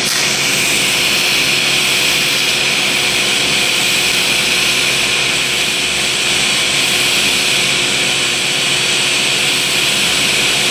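Scratch-start TIG welding arc burning on pipe as the cup is walked along the joint: a continuous, even hiss. The heat is set a little too cold for the pass.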